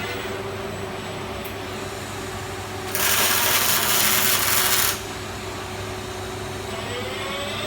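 Fronius CMT robotic welding arc on steel tube, striking about three seconds in and burning for about two seconds as a loud, even hiss before cutting off sharply. Under it runs the steady hum of the welding cell, with a faint rising whine near the end.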